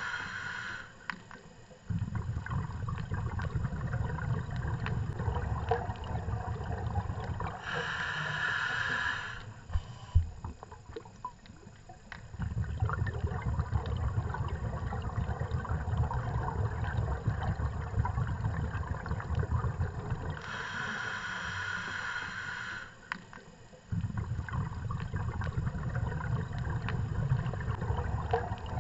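Scuba diver breathing through a regulator underwater, heard from the diver's own camera: a short hissing inhale, then a long low bubbling exhale, repeating about three times in a slow cycle. Faint clicks are scattered through it, with one sharp click about a third of the way in.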